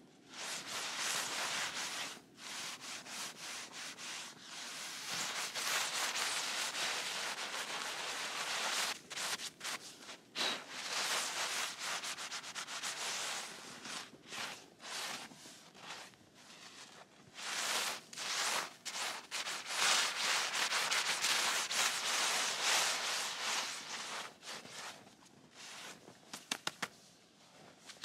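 Long scraping or rubbing strokes, each lasting a second or more, with short breaks between them.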